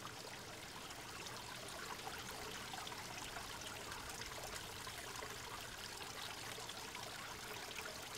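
Quiet, steady trickle of running water.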